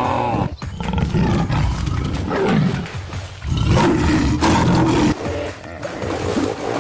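A large animal roaring several times, deep and rough.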